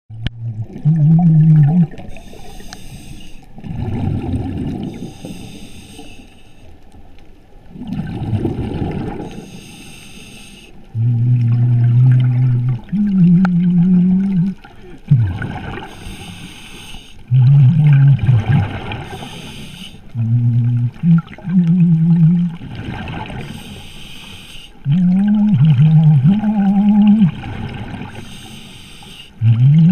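Underwater scuba breathing through a regulator: a hissing inhalation and a bubbling exhalation every few seconds. From about a third of the way in, loud, steady low tones come in repeatedly, jumping between a few pitches and starting and stopping abruptly.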